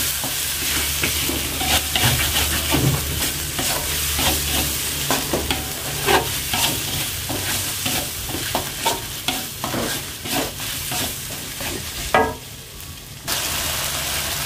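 Metal spatula scraping and knocking against a metal wok as a thick blended spice paste is stir-fried, over a steady sizzle. The stirring goes quiet for about a second near the end, then starts again.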